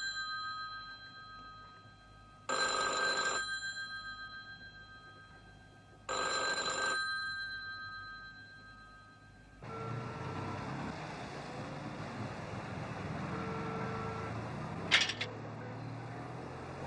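Rotary-dial telephone's bell ringing unanswered, each ring about a second long with a fading tail, repeating every three and a half seconds or so. About ten seconds in it gives way to a steady hum of street traffic, with one sharp click near the end.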